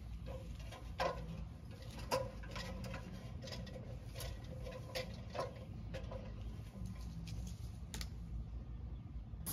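Light, irregular taps and clanks of feet and a spray gun knocking against the rungs of an aluminium extension ladder as a painter climbs it, roughly one knock a second.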